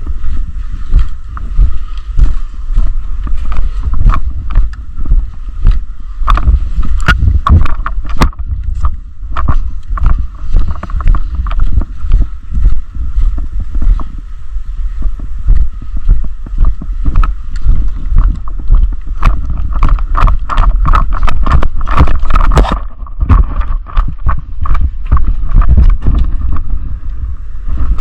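Heavy wind buffeting and rubbing on a body-worn action camera's microphone, with many sharp clicks and knocks in quick runs, thickest twice in the middle. A faint steady tone sits beneath.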